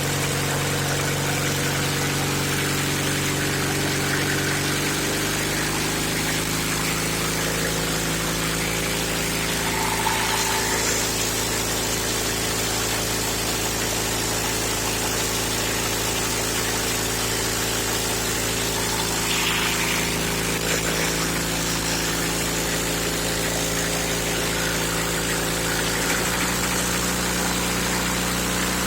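Engine of a 1941 Caterpillar D2 running steadily, most likely the gasoline pony starting engine turning over the diesel, which will not catch. Its pitch drops slightly about five seconds in and rises again near the end.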